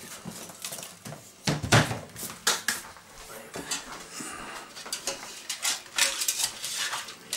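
Utensils knocking and clinking against a cooking pot in a string of irregular sharp knocks, with the busiest clatter a couple of seconds in and again near the end.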